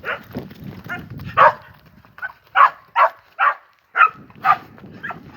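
Farm dog barking repeatedly at a young bull it is catching, short sharp barks about two a second.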